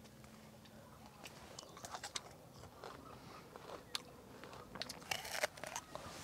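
Crisp crunching and chewing as someone bites into a fresh green jujube (the Guifei milk jujube variety): a string of sharp crunches, densest and loudest near the end.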